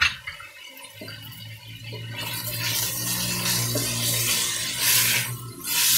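Diced pumpkin, onion, carrot and red lentils sizzling in oil in a pot as they are stirred. The frying hiss builds from about two seconds in, with louder surges near the end, over a low steady hum that starts about a second in.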